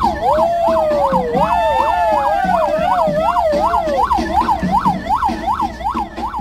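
Police sirens: one yelping fast up and down, about three cycles a second, and a second wailing slowly up and down over it for the first few seconds. A hip-hop beat runs underneath.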